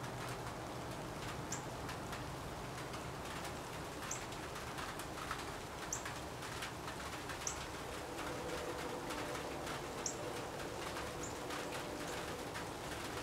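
Short, high bird chirps, one every second or two, over a steady background hiss; a faint steady hum comes in about two thirds of the way through.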